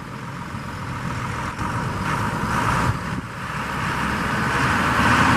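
Beach-launch tractor engine running, growing steadily louder as it draws closer.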